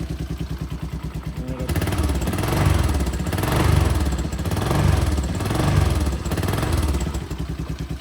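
1995 Honda Fourtrax 200 Type II ATV's 200 cc single-cylinder four-stroke engine idling with an even pulse, then revved four times in a row from about two seconds in, dropping back to idle near the end. The engine was cold-started less than a minute before and is running smoothly.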